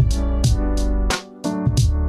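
Background music with a steady electronic beat, about two beats a second, over sustained melodic tones.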